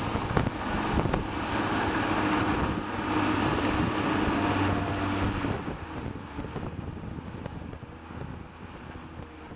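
Diesel earthmoving machines (a tracked bulldozer and excavators) working, a steady engine drone with wind buffeting the microphone and a couple of sharp knocks in the first second or so. The sound fades out over the last few seconds.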